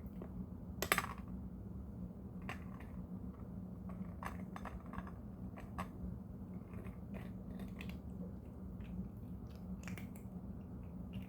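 A cat chewing a hard dental treat, with irregular crisp crunches between bites; the loudest crunch comes about a second in.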